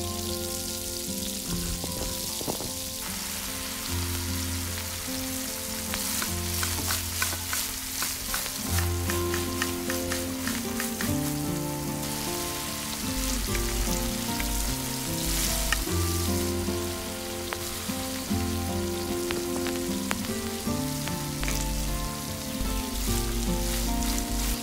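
Food frying in hot oil in a miniature pan, a steady sizzle full of small crackles that picks up about three seconds in, with occasional clicks of stirring. Gentle background music with held notes plays underneath.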